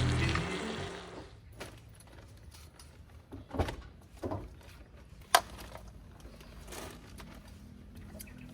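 Music fading out in the first second, then a few scattered knocks and clicks over a low steady hum.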